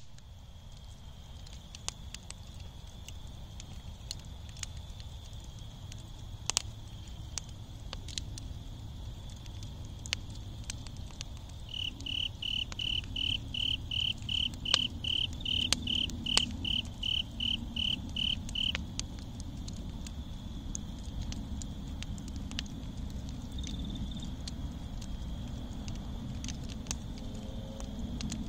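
Campfire embers crackling, with scattered sharp pops over a low rumble. A faint steady insect trill runs behind. About twelve seconds in, an insect calls in a quick even series of high chirps, about three a second, for some seven seconds.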